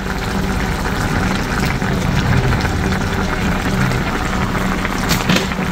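Coconut-milk curry simmering and bubbling in a wok as coconut milk is squeezed into it from a carton, a steady bubbling hiss, with a single knock about five seconds in.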